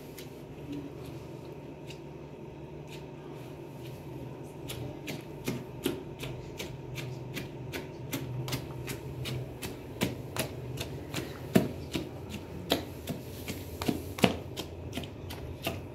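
Pomegranate seeds being crushed in a plastic basin: irregular wet crunching and sharp knocks, getting denser and louder about halfway through, over a steady low hum.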